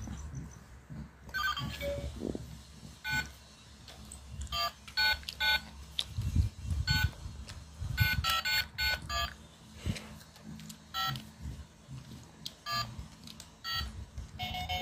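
Electronic baby toy phone with its buttons pressed one after another, each press giving a short electronic beep at uneven intervals, with knocks from the toy being handled.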